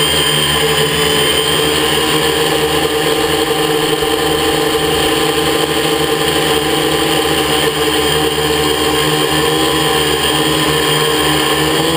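Quadcopter's electric motors and propellers whirring steadily, a constant hum of several tones held at an even pitch, picked up by a GoPro hanging on ropes beneath the craft.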